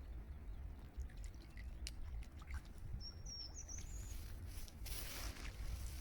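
Duck feeding in the water: scattered small water clicks and splashes, with a louder splashy burst near the end. A small bird chirps briefly about three seconds in, over a steady low rumble.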